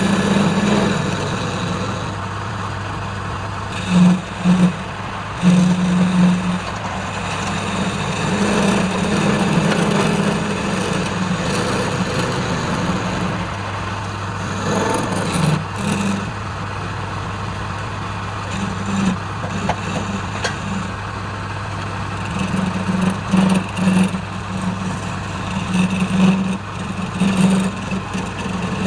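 Woodturning lathe's electric motor running with a steady low hum, a second low drone swelling and fading irregularly over a wide rushing noise.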